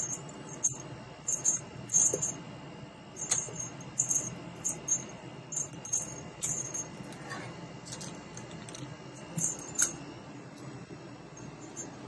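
Kitten batting and carrying a small mouse toy with tasselled legs across a hard floor: irregular light jingling taps and rattles, with a couple of sharper clicks about two seconds in and near the end.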